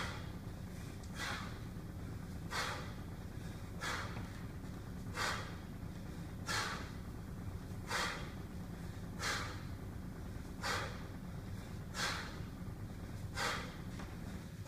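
A man's sharp, forceful breaths, one with each rep of one-arm kettlebell cleans, about one every 1.3 seconds, over a steady low hum.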